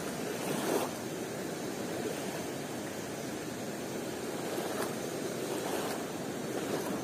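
Steady rush of a fast-flowing forest river, an even noise with a brief louder swell about a second in.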